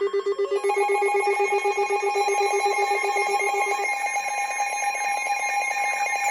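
Electronic alert tones sounding for an incoming warning: a rapidly pulsing low tone, joined about half a second in by a higher rapidly pulsing tone, with the low tone dropping out about four seconds in while the higher one keeps going.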